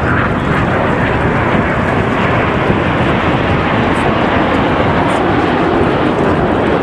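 Aermacchi MB-339 jet trainer's Rolls-Royce Viper turbojet heard in flight as a loud, steady, even rushing noise.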